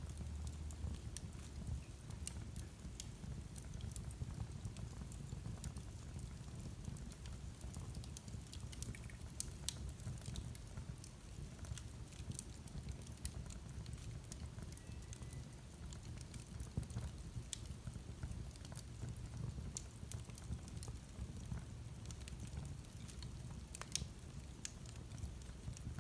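Wood fire in a fireplace burning, with a steady low rumble and irregular crackles and pops, a few sharper ones standing out.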